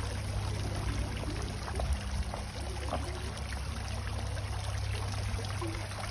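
Tiered stone fountain splashing into its basin, a steady watery rush.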